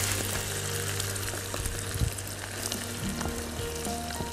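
Onions and shredded chicken sizzling in a frying pan, with one knock about two seconds in. Soft background music plays underneath.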